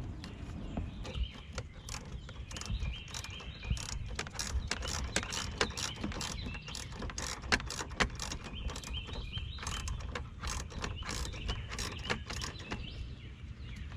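Hand ratchet wrench clicking in quick runs of strokes, turning a nut down on a car battery's hold-down bracket.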